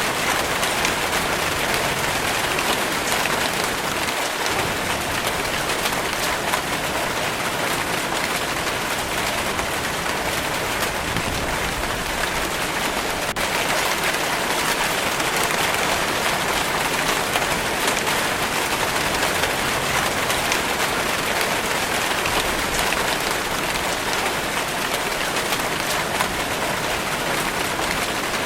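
Steady rain falling, a dense even hiss of many drops with no let-up.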